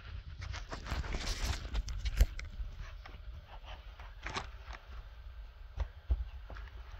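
Handling noise as gloved hands move an electric guitar in its plush-lined hard case: a rustle about a second in, then scattered light knocks and clicks, the sharpest about two seconds in, over a low rumble.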